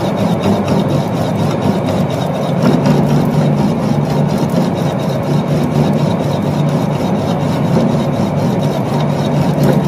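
Centre lathe running with a four-jaw chuck turning an off-centre mild steel bar: a steady motor and gearbox hum with a faint regular pulse.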